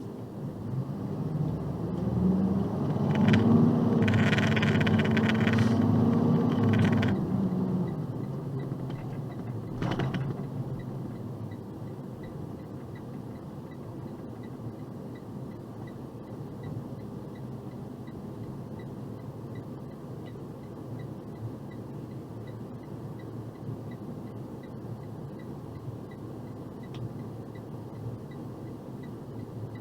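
Box truck's engine and road noise: the engine rises in pitch and gets louder for the first few seconds, holds steady, then eases off about seven seconds in. A single sharp click comes about ten seconds in, followed by a steady low rumble.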